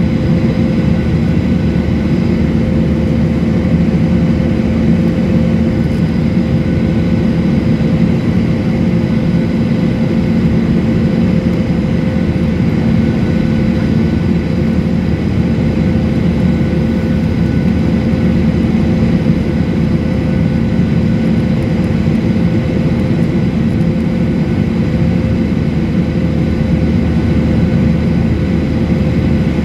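Jet airliner cabin noise in flight, heard at a window seat: the steady drone of the engines and rushing air, with a few constant hums running through it.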